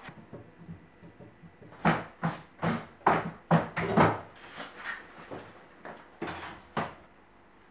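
Knocks and bumps of a metal-legged table and a chair being moved into place on a bare floor: a quick run of about half a dozen sharp knocks in the first half, then two more as a bag is handled on the table.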